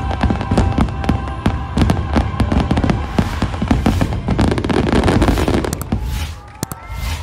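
Dense barrage of aerial fireworks bursting in quick succession, with loud booms and crackles, over the show's Christmas music soundtrack. The bursts thin out about six seconds in, leaving a few last sharp cracks.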